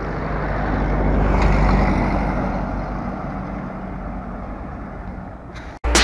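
A motor vehicle passing on the street. Its engine and road noise swell to a peak about two seconds in, then fade, and the sound cuts off abruptly near the end.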